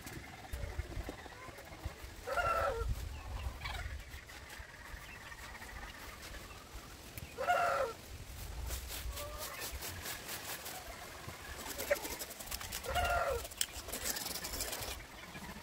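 A chicken calls three times, each call short and drawn out, about five seconds apart. Near the end comes a run of quick, scratchy strokes of a bristle broom sweeping a dirt yard.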